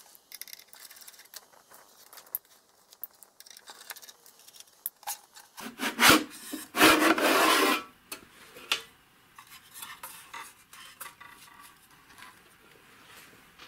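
Metal instrument case being opened by hand: scattered small clicks and taps, then loud scraping rubs about six and seven seconds in as the sheet-metal cover slides off the chassis.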